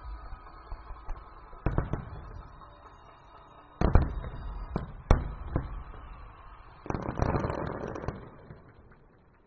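Distant aerial firework shells bursting: a few bangs about two seconds in, a loud bang around four seconds and another a second later, then a spell of crackling that fades away near the end.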